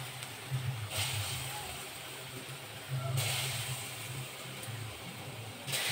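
Chickpea kofta balls deep-frying in hot oil in a kadai: a steady sizzle that swells louder three times, about a second in, about three seconds in and near the end, over a low hum.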